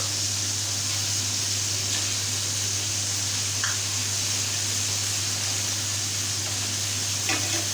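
Split chicken pieces frying gently in a pan over a low flame, with a steady, even sizzle and a couple of faint clicks.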